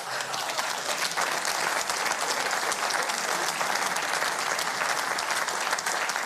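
Studio audience applauding and laughing at a joke: steady, dense clapping throughout.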